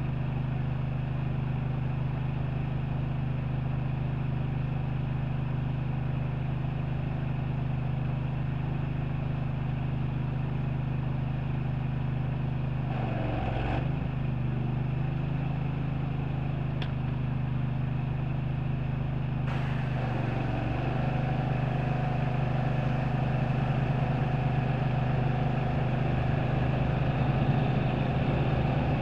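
An engine runs steadily at a constant drone, with its pitch dipping briefly twice, about thirteen and twenty seconds in.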